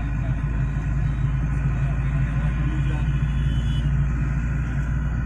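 Steady low rumble of a car driving at road speed on a highway, heard from inside the cabin.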